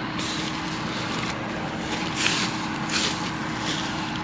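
A combine harvester runs steadily in a cornfield with an even hum. Over it comes a short dry rustle or crunch about every three-quarters of a second.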